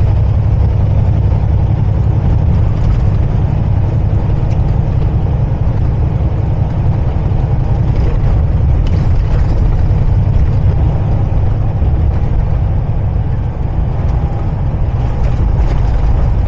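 Steady low rumble of a semi-truck under way, heard from inside the cab: engine drone and road noise.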